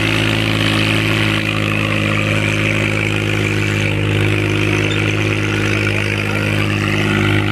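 Mahindra 265 DI tractor's three-cylinder diesel engine running steadily under load as it pulls a disc harrow through dry soil, holding an even pitch.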